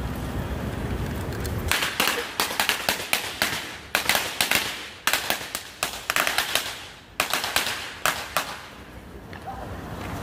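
A string of firecrackers going off: dozens of sharp cracks in quick, irregular succession for about six seconds, starting about two seconds in and dying away near the end. Wind rumbles on the microphone before the cracks begin.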